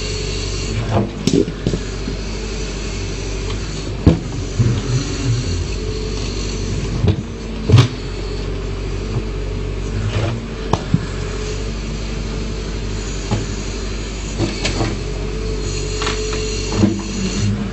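Backhoe loader's diesel engine running steadily, with scattered sharp knocks and clanks of the bucket working stone, loudest about four and eight seconds in.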